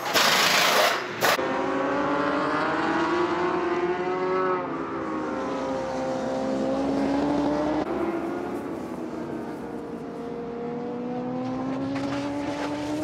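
Racing superbike engine at high revs, its pitch dropping sharply about four seconds in and then climbing steadily again, after a loud rushing burst in the first second or so. A few sharp clatters near the end as a bike goes down in a crash.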